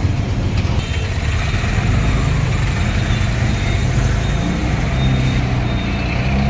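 Auto-rickshaw engine running, heard from inside its open passenger cabin, with the steady rumble of the surrounding road traffic.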